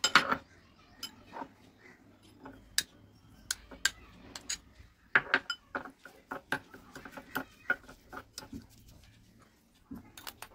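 Steel spoon clinking and scraping against a glass bowl while stirring a dry spice powder, in irregular sharp taps, the loudest right at the start.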